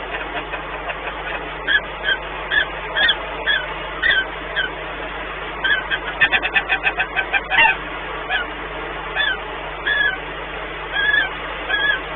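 Peregrine falcons calling to each other in the nest during pair bonding: a string of short chirping calls that rise and fall, with a quick run of clipped calls about halfway through, over a steady background rush.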